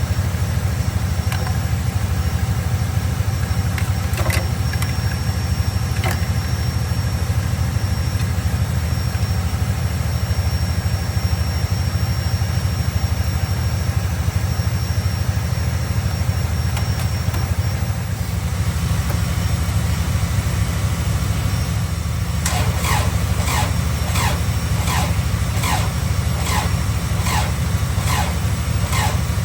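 A vehicle engine idling steadily. Near the end a regular ticking, about two ticks a second, starts over it.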